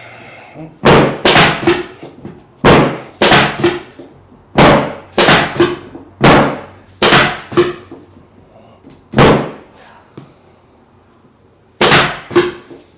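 Chiropractic drop table's pelvic section raised and slamming down under the chiropractor's thrusts on the hips. About fourteen loud, sharp clacks, mostly two or three close together with pauses between.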